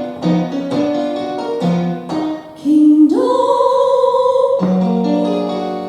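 Piano accompaniment to a stage-musical song: a few struck chords, then a woman's voice holds one long sung note about three seconds in, and a final piano chord rings and fades away.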